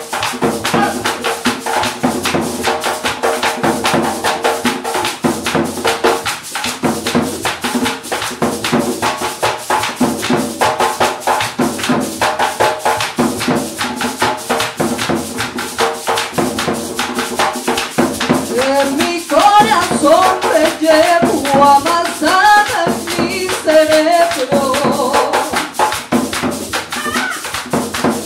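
Colombian folk ensemble playing live: hand drums and maracas keep a fast, even rhythm under a steady melody line, and a woman's singing voice comes in about two-thirds of the way through.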